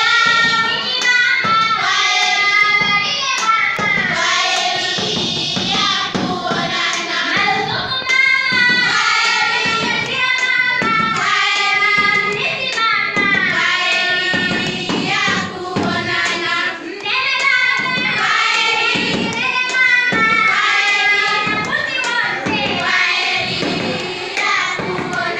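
A group of schoolchildren singing a song together, with hands clapping along in rhythm.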